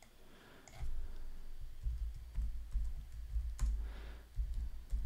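Typing on a computer keyboard: a run of irregular, dull keystrokes starting about a second in.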